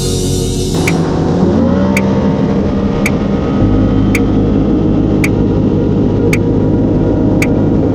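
Personal watercraft engine running under way, its pitch rising as it speeds up about a second in, then holding steady. A sharp tick repeats about once a second.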